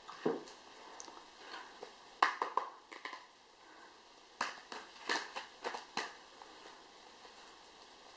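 A Mermaid Oracle deck of cards being shuffled and handled: scattered sharp snaps and clicks of card stock in a few short clusters.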